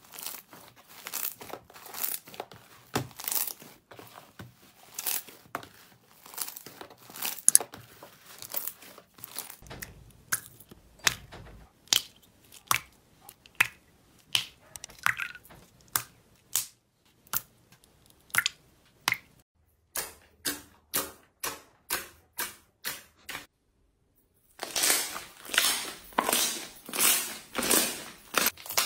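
Slime being pressed, squeezed and kneaded by hand, giving sticky crackling and popping clicks: sparser, evenly spaced pops through the middle and a louder, denser run of crackles near the end.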